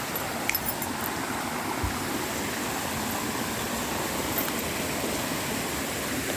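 Steady rush of waterfall and stream water. There are a couple of faint clicks about half a second in.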